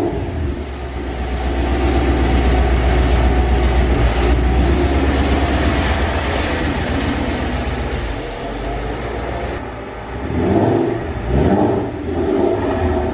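Ford Mustang GT's 4.6 L V8 running at low speed with a steady deep rumble as the car reverses out of the garage. About ten seconds in, the revs rise briefly two or three times.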